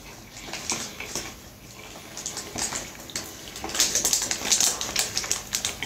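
Paper food wrapper crinkling and rustling as it is handled and scrunched, an irregular crackle that grows louder and busier from about four seconds in.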